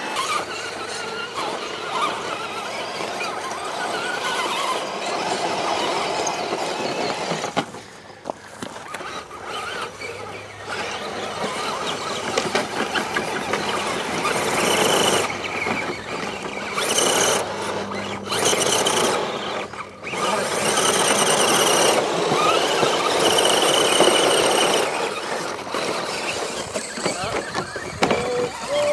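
Axial SCX10 scale crawler trucks' electric motors and gearboxes whining at high throttle, with tyres spinning and scrabbling in loose dirt. The high whine is loudest in two stretches, about halfway through and again a few seconds later.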